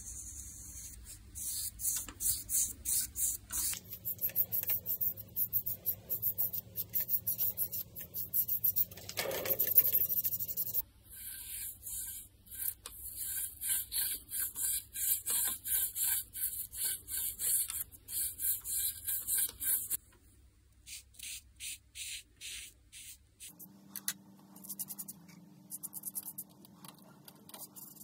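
Rapid back-and-forth rubbing strokes against a turned ash wand, a few strokes a second, in several short runs that stop and start, with one louder, longer scrape about nine seconds in. A low steady hum sits underneath in parts.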